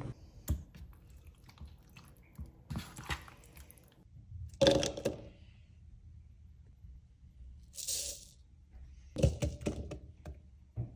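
Scattered knocks and clatters of food pieces being dropped into a plastic blender jar on a countertop, the loudest about halfway through and again near the end, with a short rustle about eight seconds in.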